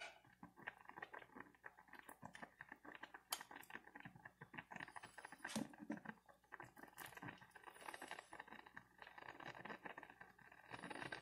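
Faint, steady crackle of water simmering in a saucepan of poaching cod, with small clicks and scrapes as a slotted spoon scoops pieces of fish out of the pan.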